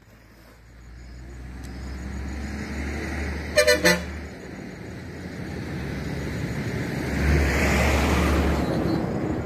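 A vehicle horn gives three quick toots about three and a half seconds in. Under it runs a steady low rumble, and a swell of road noise comes near the end.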